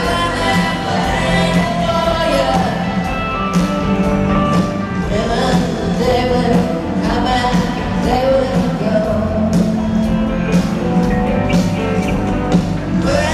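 Live rock band playing through a stadium sound system, with drums, guitars and bass under lead and backing vocals.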